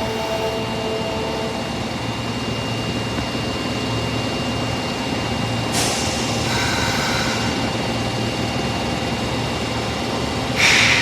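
Osaka Metro Tanimachi Line 22 series subway train, car 22662, with a steady rumble, a short hiss about six seconds in and a louder noisy burst near the end.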